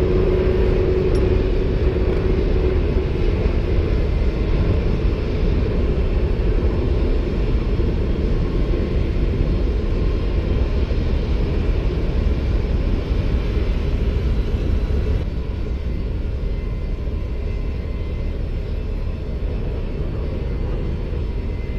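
Steady low rumble of lavatory service equipment running while it pumps 15 gallons of rinse fluid into an aircraft's forward waste tank. It gets slightly quieter about fifteen seconds in.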